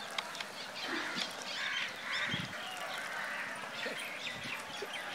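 Crows cawing in the background, a call loudest about two seconds in.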